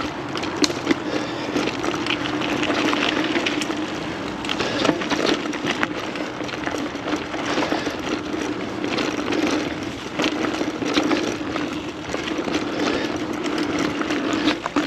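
Mountain bike riding along a dirt trail, picked up close by a chest-mounted GoPro: steady rolling noise with a low hum, and frequent clicks and rattles from the bike and trail.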